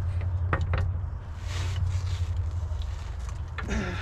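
Ratchet of a click-type torque wrench being worked on a rear wheel hub nut, giving a few sharp clicks over a steady low hum. The nut is being pulled toward 214 ft-lb and the wrench has not yet reached its setting.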